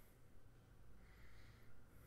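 Near silence: room hum with one soft breath close to the microphone about a second in.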